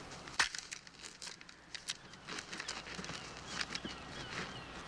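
Handling noise of a Barrett M82A1 .50-calibre rifle being held out and taken: a sharp click about half a second in, then scattered small clicks and rustles.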